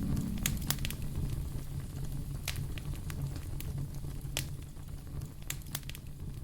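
Wood fire crackling: sharp, irregular pops and snaps over a low steady rumble.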